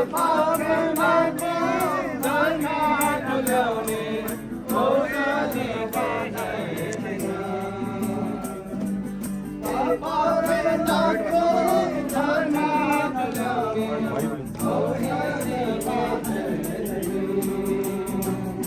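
A group of voices singing a gospel worship song over instrumental accompaniment with a steady beat, in phrases with short breaths between them.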